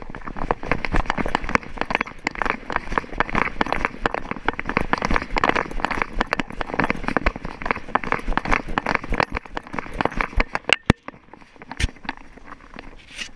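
Schipperke trotting and running on a dirt and gravel trail, heard from a camera strapped to its body: a rapid, continuous patter of paw steps and jostling. About ten seconds in it thins out into a few separate scuffs and clicks.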